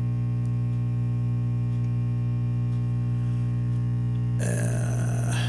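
Silvertone 6050 tube radio's speaker humming steadily, a low buzz with many overtones, which the restorer takes for a bad filter capacitor. A short burst of crackly noise comes in about four and a half seconds in.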